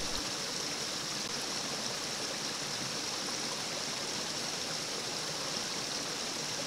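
Steady rush of flowing water, even throughout with no separate splashes.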